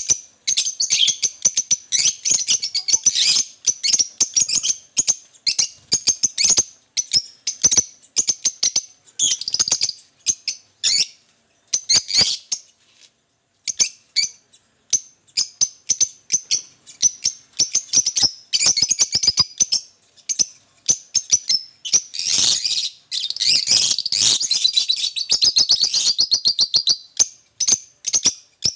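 Caged lovebird chirping and chattering: rapid, shrill high-pitched chirps in runs, with a brief pause about halfway through and a longer, denser spell of chatter later on.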